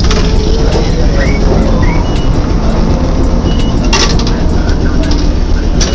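Randen streetcar running along street track, heard from the driver's cab: a steady loud low rumble of the motors and wheels on the rails. Two short high squeals come about one and two seconds in, and a sharp clack about four seconds in.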